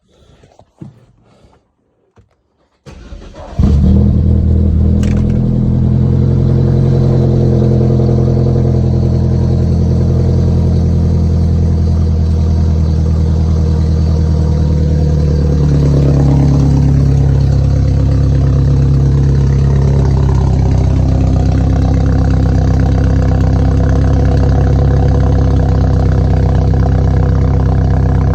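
BMW 320i with a Luzia stage 2 aftermarket exhaust starting up about three seconds in, then running loud and steady at idle, its exhaust note wavering slightly in pitch around the middle.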